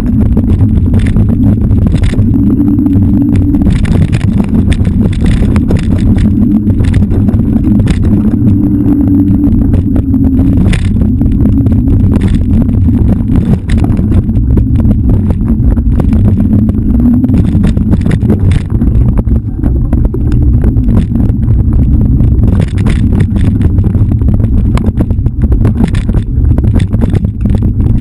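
Loud wind buffeting and rumble on an action camera's microphone while riding fast down a forest dirt trail, with frequent short rattles and knocks from bumps in the trail.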